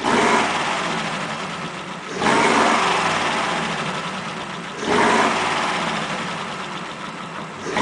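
Exhaust of a 1941 Ford pickup's flathead V8 running, heard close at the tailpipe, swelling sharply three times and easing off between. The engine is running without flooding after the carburettor repair, which the owner calls a good repair.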